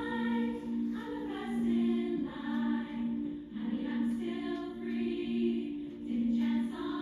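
A choir singing slow, held chords in harmony, heard through a television's speaker.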